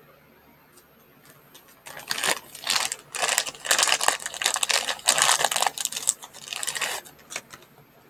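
Packaging being handled: a run of rustling, crinkling bursts that starts about two seconds in and stops about a second before the end.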